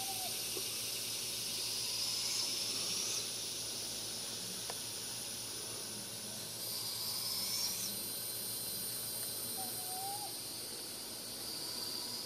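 Steady outdoor hiss of evening woods, with a thin high-pitched call repeated three times about five seconds apart and a couple of faint short chirps lower down.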